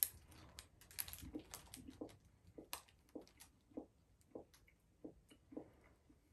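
Faint, close chewing of a snack, a steady rhythm of soft chews a little under two a second, after a short wrapper crinkle right at the start.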